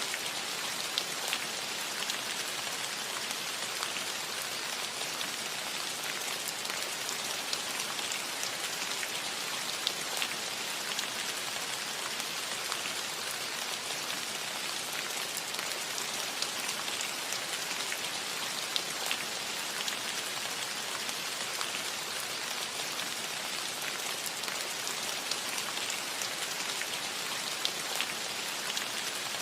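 Steady rain falling on a metal roof, a constant patter of drops with frequent small sharp taps.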